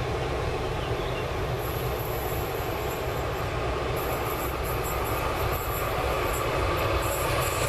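Approaching freight train hauled by an FS Class E.402 electric locomotive: a steady rumble of wheels on rails that grows slowly louder, with a high hiss from the rails and wheels coming in about one and a half seconds in and strengthening from about four seconds.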